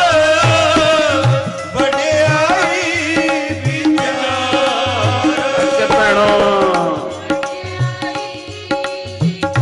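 Sikh kirtan: a man sings a hymn with wavering, ornamented lines over tabla and a steady harmonium drone. The singing stops about seven seconds in, and the tabla and harmonium carry on.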